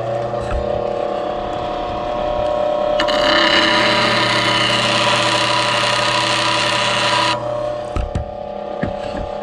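Bench grinder motor running steadily at low speed. From about three seconds in, the steel edge of a lathe scraper is pressed to the fine grinding stone for about four seconds, giving a loud hissing grind over the motor hum, which then runs on alone.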